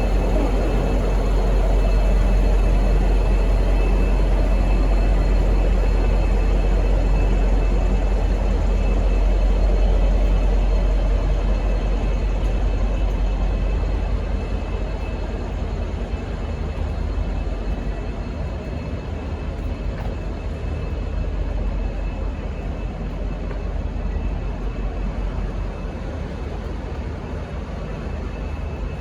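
Diesel engine of V/Line N class locomotive N452, an EMD 12-cylinder two-stroke, running with a deep steady rumble as the locomotive shunts. The rumble grows quieter about halfway through.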